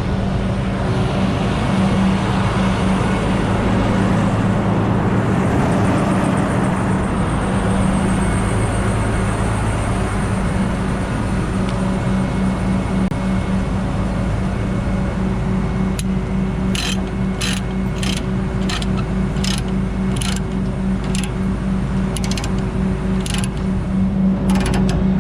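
Diesel truck engine idling steadily. In the last third, a series of sharp metallic clicks, about one a second, from chain tie-down gear being worked while securing the load.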